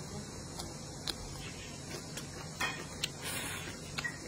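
A man eating with chopsticks close to the microphone: chewing, with a handful of sharp clicks of mouth and chopsticks and a brief hissy rush about three seconds in.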